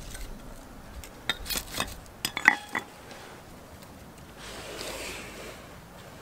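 Ferro rod scraped hard along the spine of a steel knife blade: several quick, sharp metallic scrapes about a second in, lasting a second and a half, throwing sparks into a pile of wood shavings. A soft hiss follows a few seconds in as the lit shavings flare up.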